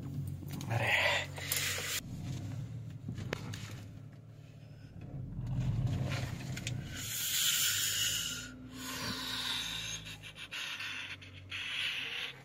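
Honda car's engine running low and steady, heard from inside the cabin as the car moves slowly into parking, with two stretches of rubbing, scraping noise over it.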